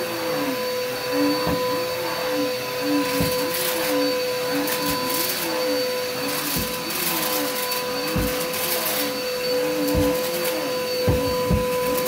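Upright vacuum cleaner running on carpet with a steady motor whine. A lower part of its sound dips and rises rhythmically, about once a second, as it is pushed back and forth.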